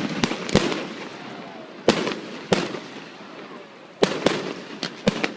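Aerial fireworks bursting: a string of about nine sharp bangs at uneven intervals, some in quick pairs, each trailing off briefly.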